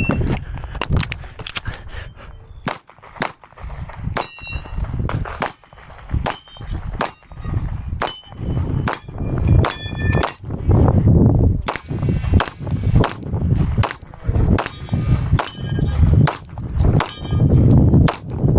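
A shot-timer start beep, then a long string of rapid pistol shots. Many are followed by the ringing clang of hit steel targets.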